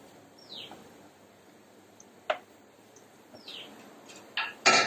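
Mostly quiet stirring of a spatula through dry masala in a non-stick pan. Two faint, short falling chirps like a bird call, a sharp click about two seconds in, and two louder knocks near the end.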